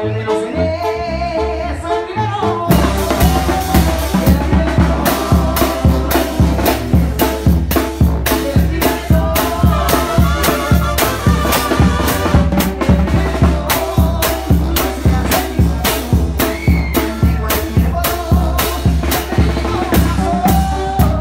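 Live Mexican grupero band music: a singer over brass and drums, with the full drum kit and bass coming in strongly about three seconds in and keeping a steady beat.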